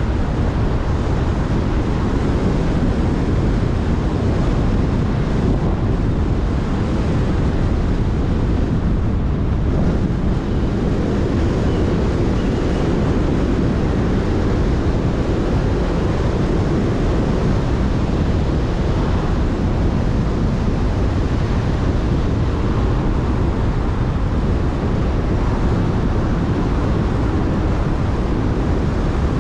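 Steady road noise from a car driving at speed on a country road: tyres rolling on tarmac and a low rush of wind buffeting the microphone.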